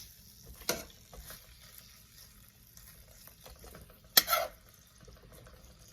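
Metal kitchen utensil knocking against a pan, a light knock about a second in and a louder, briefly ringing one near four seconds in, over a faint steady hiss of cooking.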